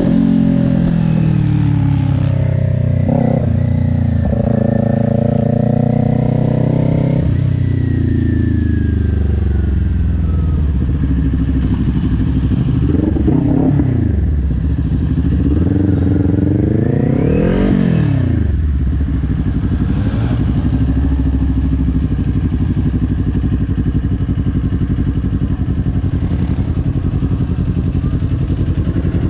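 Kawasaki Ninja 400's parallel-twin engine heard from on the bike: its note falls as the bike slows, it revs up and back down twice about halfway through, then it settles to a steady idle.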